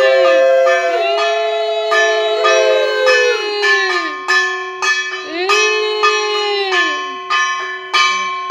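A puja hand bell rung steadily, about three strokes a second, its ringing overlapping, with long sustained tones that swell and bend in pitch sounding over it, as at the close of a household puja.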